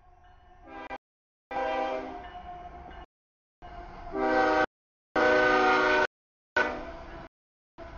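Canadian Pacific freight locomotive's air horn sounding five blasts of varying length as the train reaches a grade crossing, the warning signal for the crossing. The sound drops to dead silence between the blasts.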